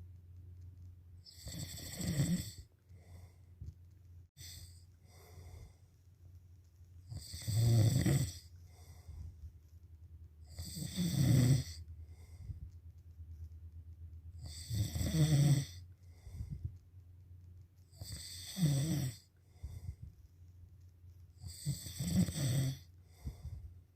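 Slow, regular snoring: six snores, one every three to four seconds, with a steady low hum underneath.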